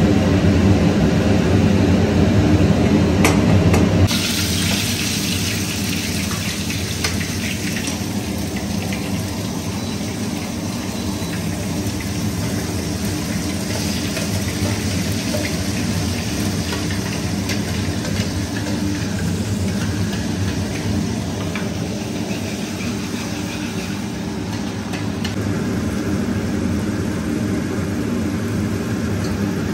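Ground onion and tomato masala paste sizzling in hot oil in a kadai, a steady hiss that starts suddenly about four seconds in, over a steady low hum.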